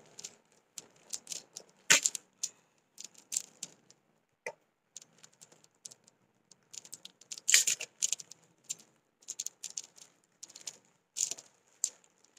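A boxed tripod being unpacked by hand: irregular clicks, rattles and crinkles of its packaging being pulled and opened, with the loudest clusters about two seconds in and again near the middle.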